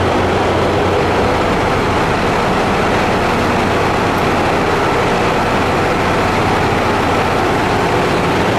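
Diesel engines of a JR Hokkaido KiHa 183 series express railcar set idling steadily, a continuous low hum.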